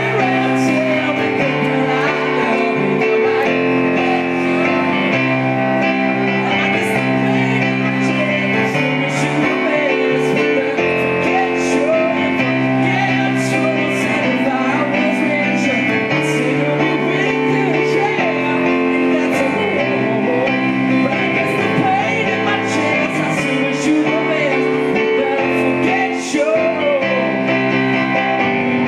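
Yamaha electric stage keyboard played with a piano sound in steady, rhythmic chords, a Motown pop cover, with a man singing over it.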